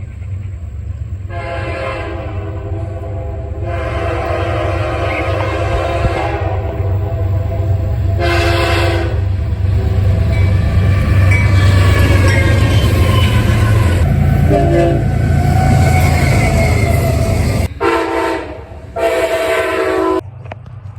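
Locomotive air horn sounding two long blasts, a short one and a long one over the rumble of a passing train, the last blast the loudest, its pitch dropping partway through. After the rumble stops abruptly, two short horn blasts follow.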